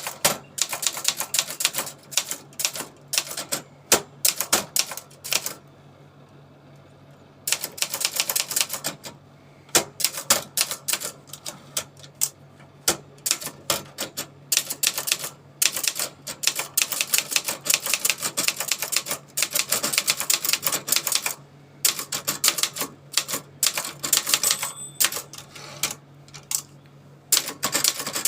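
Brother Deluxe 220 typewriter being typed on: fast runs of key strikes broken by short pauses, with a lull of about two seconds early on. A faint steady hum lies underneath.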